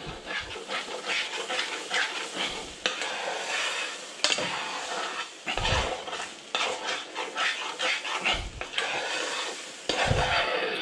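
A metal spoon stirring and scraping through scrambled eggs in a frying pan, in repeated irregular strokes, over a steady frying sizzle.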